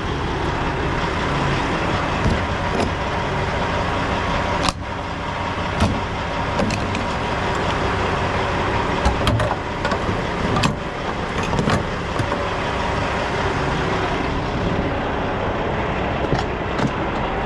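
Diesel engine of a 2000 Freightliner FLD semi-truck running steadily at low speed while backing a trailer, with scattered sharp clicks and knocks over it.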